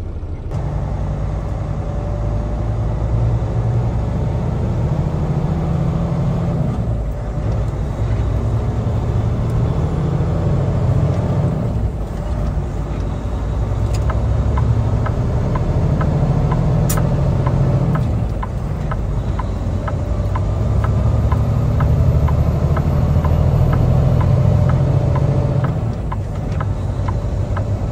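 Kenworth T680 semi-truck driving at highway speed, heard from inside the cab: a steady, loud low engine and road rumble whose note dips and recovers several times. A regular light ticking runs through the middle, with one sharp click about two-thirds of the way through.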